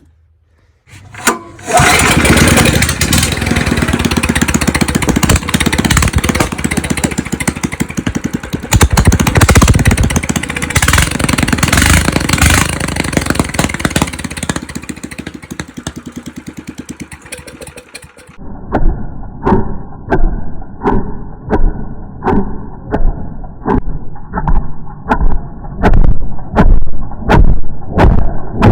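Straight-piped 420cc single-cylinder go-kart engine starting about a second in, then running loud and raw with the revs rising and falling. Later it changes abruptly to a duller sound of regular loud pulses, about one and a half a second, growing louder toward the end.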